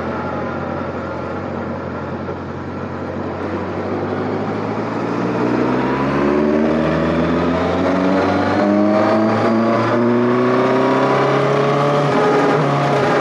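Benda LFC 700 Pro motorcycle's V4 engine heard from the rider's seat: the engine note falls off at first, then rises steadily from about four seconds in as the bike accelerates.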